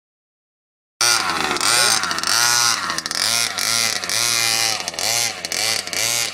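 King Motor Baja 1/5-scale RC buggy's two-stroke petrol engine revving up and down in quick repeated throttle bursts, starting suddenly about a second in.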